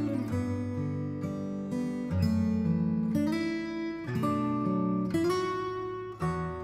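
Background music of acoustic guitar strumming chords, with a new chord struck about every second.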